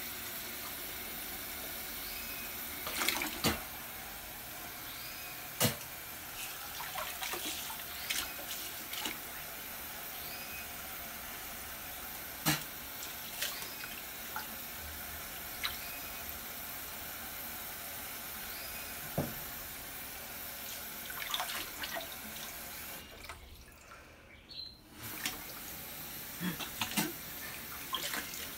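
Bathroom faucet running steadily into a sink, with scattered splashes and clicks as hands move under the stream. The rush is briefly muffled for about two seconds near the end.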